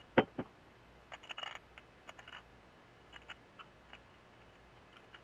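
Two sharp knocks just after the start, then scattered light clicks and taps of tools and small parts being handled while a Mikuni carburetor is taken apart.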